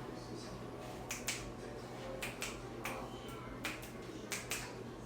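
A series of sharp clicks, about nine, several coming in quick pairs, over a steady low hum.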